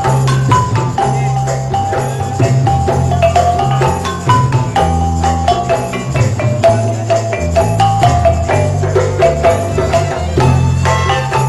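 Upbeat background music: a melody over a bass line, with a steady beat.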